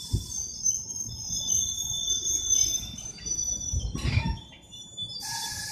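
Passenger train braking as it pulls into the station: several thin, high-pitched squeals from its brakes and wheels over a low rumble, with a hiss of air starting near the end.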